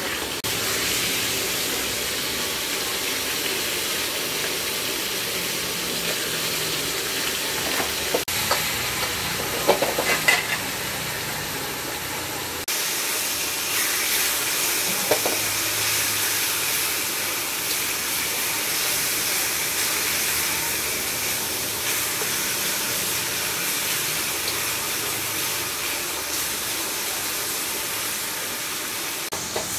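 Food sizzling steadily as it is stir-fried in a hot pan, with a few sharp metal clinks and scrapes of a cooking utensil against the pan about a third of the way in and again around halfway. The sizzle turns brighter and more hissing after a sudden change near the middle.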